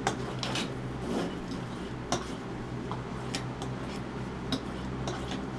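A 6-inch Dexter boning knife being sharpened: light metallic ticks and scrapes of the blade at an uneven pace, about one or two a second.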